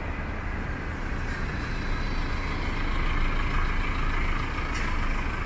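Street traffic with a small flatbed lorry driving past close by, its engine running over steady road rumble. The sound grows louder through the middle as the lorry comes near.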